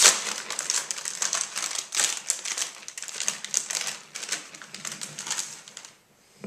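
A bag of Cool Ranch Doritos being opened and handled, its plastic-foil packaging crinkling and crackling in a rapid run of sharp clicks that dies away near the end, picked up close by a karaoke microphone.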